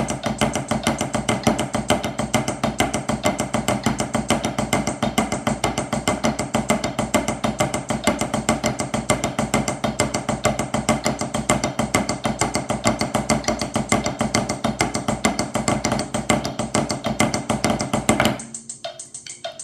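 Drumsticks playing the Swiss Army triplet rudiment as 16th notes at 100 beats per minute, with a flam on the last 16th of each bar, in a fast, even stream of strokes. The playing stops about a second before the end.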